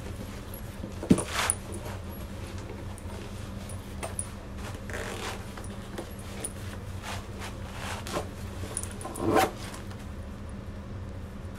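Laces of leather lace-up boots being pulled and tightened through the metal eyelets, with rustling of clothing and a few light clicks and knocks over a steady low hum. The sharpest click comes about a second in and the loudest rustle near the end.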